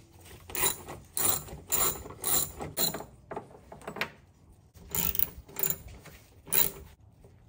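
Hand socket ratchet clicking in short bursts as it backs out cowl bolts. There are about two back-swings a second for the first three seconds, then a few more spaced further apart.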